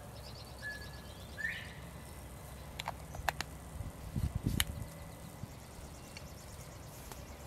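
Birds trilling and calling faintly in woodland, with a few sharp clicks and soft knocks from small plastic spice bottles being opened and handled close by, the knocks bunched about four seconds in.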